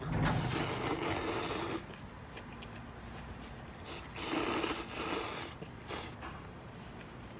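A person slurping sweet potato noodles from a bowl: two long, loud, hissing slurps, the second starting about four seconds in, followed by a couple of short sucks.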